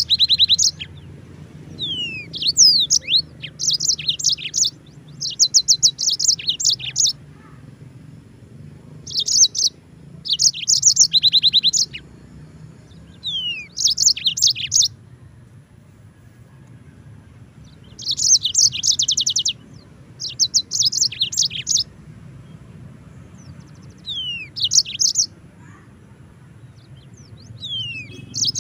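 Yellow-fronted (Mozambique) canary singing in phrases of about one to two seconds, each a fast high trill mixed with downward-slurred notes, with short pauses between phrases.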